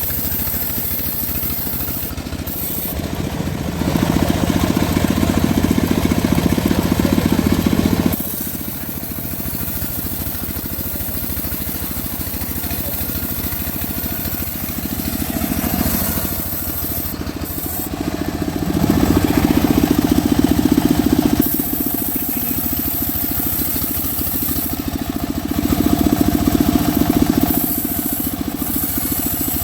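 Engine-driven homemade sawmill running steadily and sawing mahogany, the cut getting louder three times: for about four seconds near the start, then twice for two to three seconds in the second half.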